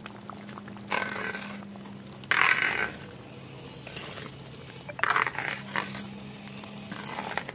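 Thick Ceylon gooseberry jam boiling in a metal pot while a slotted metal spoon stirs it, with three louder bursts of stirring and bubbling about a second, two and a half and five seconds in. A steady low hum runs underneath.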